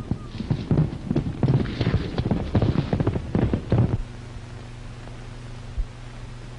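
Horse hooves galloping, a fast irregular clatter that stops about four seconds in, over the steady low hum of an old film soundtrack.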